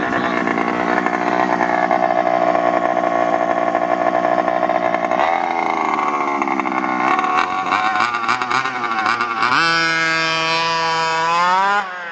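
Two-stroke petrol engine of an HPI Baja 5SC 1/5-scale RC truck idling steadily, then blipped a few times. About ten seconds in it revs up to a steady high-pitched full-throttle run as the truck speeds off, and the sound drops sharply just before the end.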